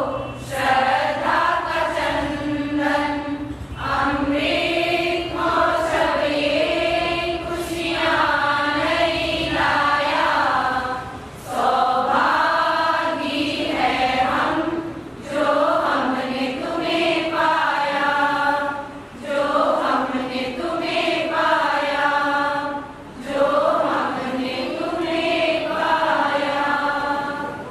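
A women's group singing a Hindi devotional song (gitika) together, in long sung lines with short breaks between them.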